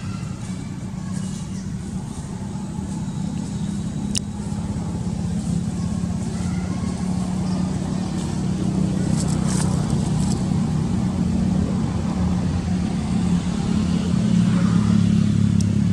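A motor vehicle engine running steadily as a low hum, growing louder toward the end, with a sharp click about four seconds in.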